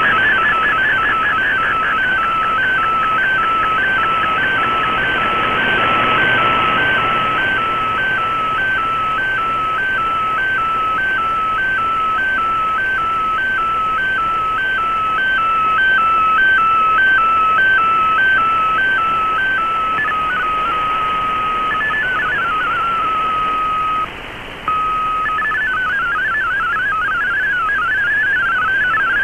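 Shortwave receiver audio of an MFSK digital data broadcast over steady band hiss. For most of the clip the signal steps evenly back and forth between two tones as a picture is sent. It then holds a single steady tone, drops out briefly, and near the end breaks into rapid warbling MFSK32 text data.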